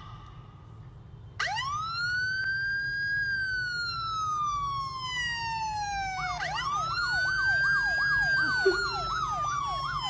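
Electronic siren, police style: a wail sweeps up about a second and a half in and slowly falls, then sweeps up again, with a fast up-and-down yelp warble running over it from just past the middle.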